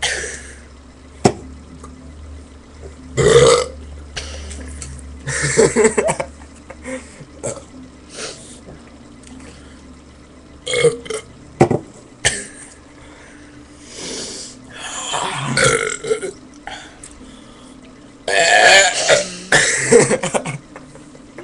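Loud burps, one after another, each lasting up to a second or two. The longest, about two seconds, comes near the end.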